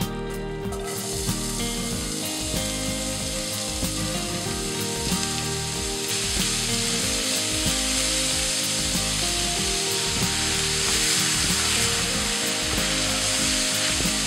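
Chopped onions and peppers frying in hot oil in a pan, sizzling steadily while a spatula stirs them. The sizzle starts about a second in and gets louder about halfway through.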